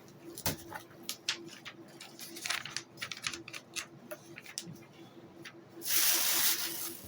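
Rustling and small clicks from unpacking and handling packing material, with a loud, hissy rustle about six seconds in, over a faint steady hum.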